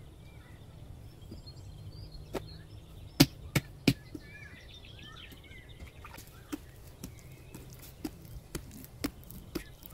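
Sharp slaps and knocks of hands working bread dough in a large aluminium bowl: three loud ones in quick succession about three seconds in, lighter ones spaced through the rest. Birds chirp in the background.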